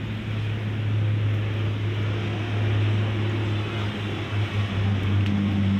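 A motor engine running steadily close by, giving a loud low hum with a hiss over it. The hum wavers slightly near the end.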